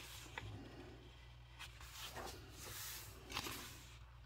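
Faint rustling of coloring book pages being turned and handled, several soft paper swishes.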